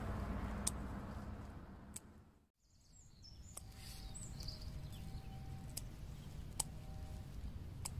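A vehicle's low rumble fades out over the first two and a half seconds. After a moment of silence, quiet outdoor ambience follows, with faint bird chirps and a few sharp clicks.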